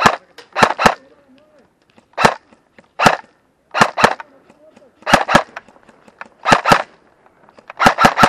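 Airsoft rifle firing single shots, often in quick pairs, a dozen or so spread across several seconds, then a fast string of shots near the end.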